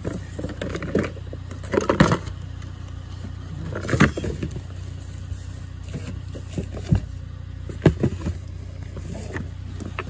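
Rummaging through cardboard boxes inside a dumpster: a few sharp knocks and rustles, about 2, 4, 7 and 8 seconds in, over a steady low hum.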